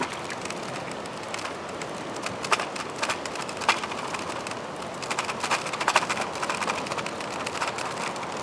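Bicycle rolling over a wooden boardwalk: irregular clicks and rattles as it crosses the plank joints, over a steady hiss of tyres and air.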